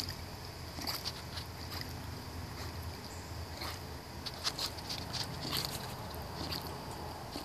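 Cocker spaniel paddling across a swimming pool: small irregular splashes and laps of water, a few at a time, over a steady low hum.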